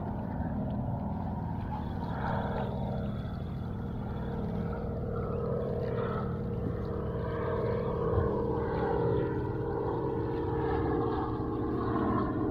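Steady engine drone, its pitch slowly shifting.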